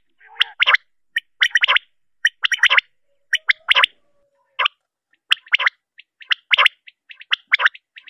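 Common quail (batair) calling: short clusters of two or three quick, high notes, repeated about once a second.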